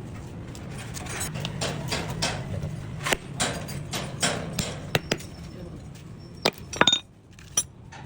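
Irregular metallic clinks and knocks, a few sharper ones standing out, over a low steady hum.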